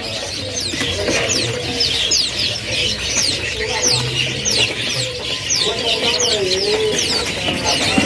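Many small caged songbirds chirping at once: a dense, unbroken chatter of quick falling chirps, with lower wavering calls underneath.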